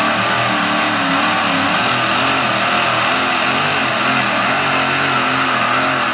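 Supercharged gas pulling tractor's engine running hard at high revs, the pitch rising and falling a little as it pulls the sled.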